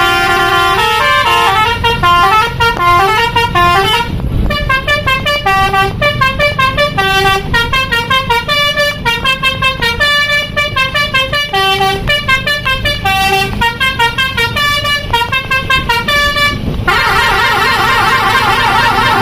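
Basuri-type multi-tone musical bus horn ('telolet' horn) playing a fast tune of short stepped notes. Near the end it switches to a warbling tone.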